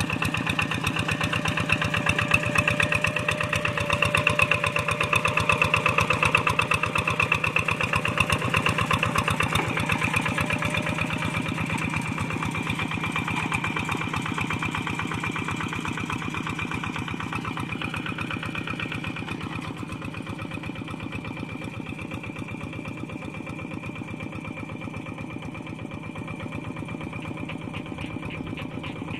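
Single-cylinder diesel engine of a two-wheel walking tractor running steadily under load with a rapid, even firing beat, as its cage wheels and levelling board work through a flooded paddy. The sound grows fainter from about ten seconds in as the tractor moves away.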